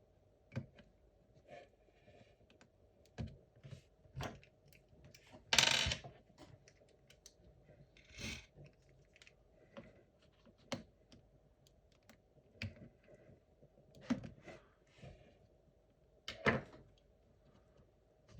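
Scattered small clicks, taps and brief scrapes of hands working inside an open laptop, fitting the battery's ribbon cable back into its motherboard connector. The loudest scrapes come about 6 seconds in and again near the end.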